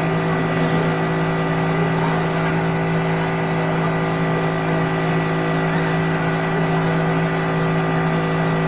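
Steady electrical hum with a constant hiss behind it, unchanging in pitch and level.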